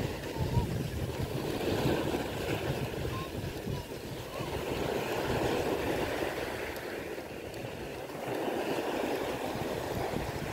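Wind rumbling on the microphone over surf washing on the shore, an uneven noise that swells and dips.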